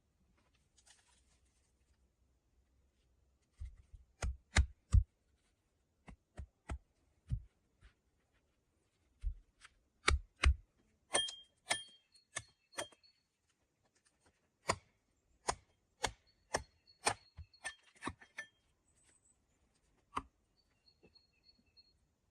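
Axe chopping into a log: sharp strikes at an irregular pace, starting a few seconds in, a few of them with a brief metallic ring.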